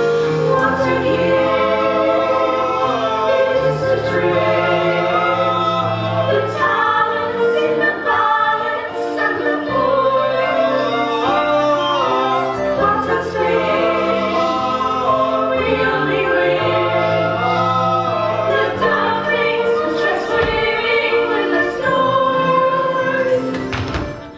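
Choral singing, several voices holding long notes in harmony over a low accompaniment, fading out at the very end.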